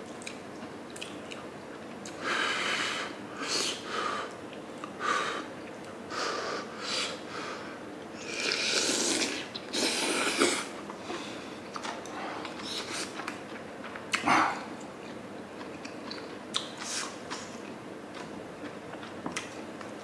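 A person eating sundae gukbap (Korean blood-sausage soup with rice) close to the microphone: a run of wet chewing and mouth sounds, longest and loudest about halfway through, then quieter scattered clicks.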